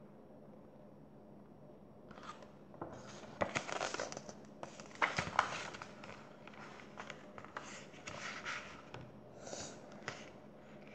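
Paper book pages rustling and crinkling as they are handled and turned, with sharp crackles. It starts about two seconds in and goes on unevenly.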